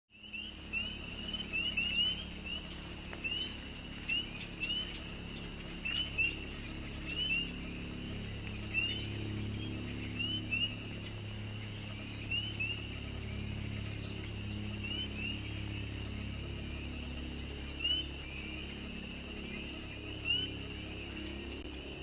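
Outdoor wildlife chorus: many short, high, rising peeps, several a second and overlapping, over a low steady hum.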